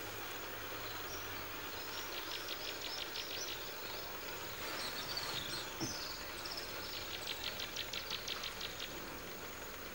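Outdoor ambience with birds calling: two runs of rapid repeated high notes, about eight a second, with a short warbling whistle between them. A brief soft knock comes about six seconds in.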